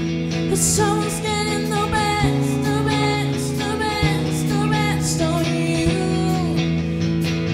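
Live rock band playing: a woman singing lead over electric guitars, electric bass and a drum kit with cymbals.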